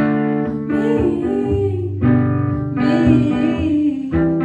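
Live indie rock song: guitar-led band music with a woman singing a drawn-out vocal line.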